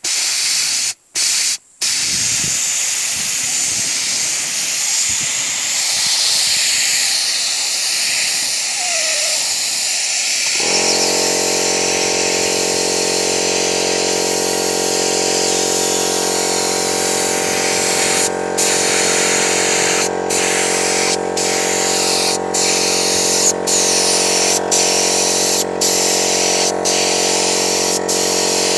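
Paint spray gun hissing steadily as it sprays lacquer onto wooden stair treads, with short breaks in the spray, a couple near the start and then about once a second in the last third. About ten seconds in, a motor starts up and runs with a steady hum under the hiss.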